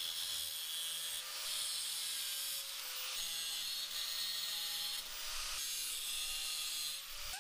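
Angle grinder grinding a small steel piece: a steady motor whine under load over the hiss of the wheel on the metal, which shifts a little as the pressure changes and stops just before the end.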